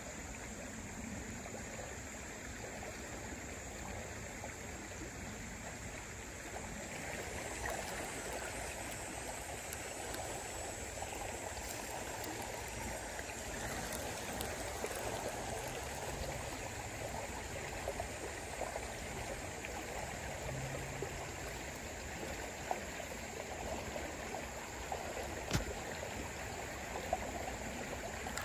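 A small river running a little high, flowing steadily past the bank with an even rushing sound. A few short sharp clicks come near the end.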